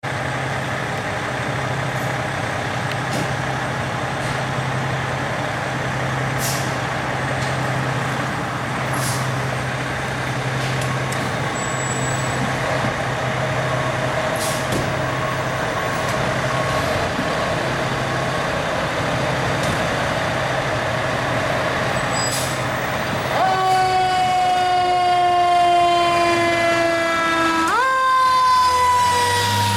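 Fire engines' diesel engines idling steadily, with several short sharp sounds over the top. About three-quarters of the way in, a fire engine's siren starts as it pulls out: a wail that falls slowly, jumps back up near the end and falls again.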